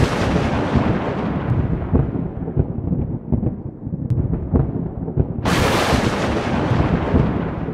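Thunder: the rolling rumble of a thunderclap dying away, then a second sharp clap about five and a half seconds in that rolls on into rumble.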